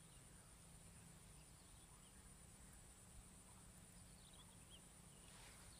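Near silence: faint outdoor ambience with a steady high-pitched hum and a few faint chirps about four to five seconds in.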